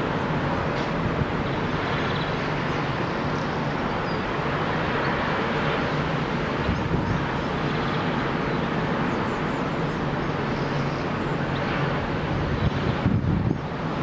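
Steady roar of storm wind over a rough sea, with gusts buffeting the microphone near the end.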